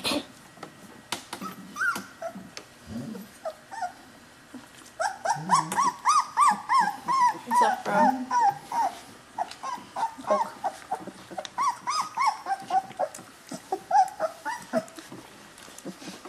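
Three-week-old Chinook puppies whimpering, a rapid run of short, high, rising-and-falling whines, several a second. It starts about five seconds in and lasts some ten seconds, with only a few scattered calls before it.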